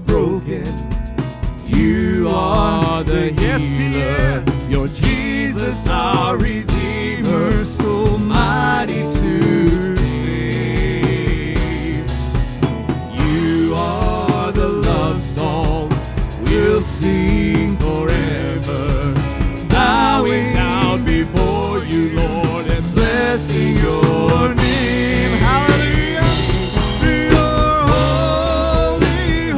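Live church worship band music: a song played on a drum kit and other instruments, with a wavering melody line over it.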